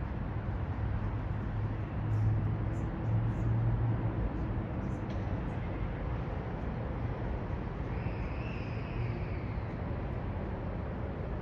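City traffic ambience: a steady wash of road noise with a low vehicle-engine hum, a few faint clicks in the first half, and a faint high whine about eight seconds in that slides slightly down.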